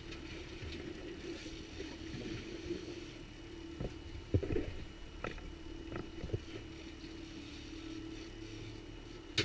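Boat's outboard motor running with a steady hum, with a few short knocks around the middle.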